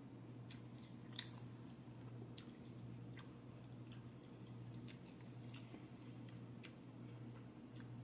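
Faint close-up chewing of a salad with grilled chicken and berries, with scattered wet mouth clicks, over a steady low hum.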